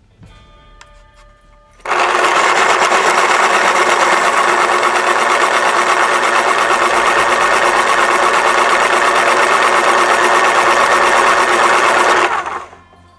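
Electric pencil sharpener grinding a wooden pencil: the motor starts suddenly about two seconds in, runs loud and steady for about ten seconds, then winds down.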